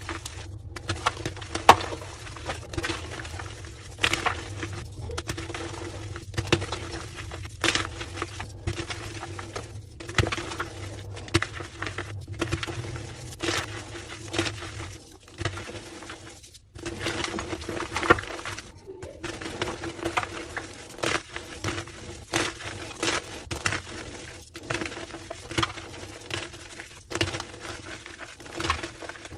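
Slabs of homemade gym chalk being crushed: a dense, irregular run of squeaky crunching and crackling, broken by a few abrupt short gaps, over a steady low hum.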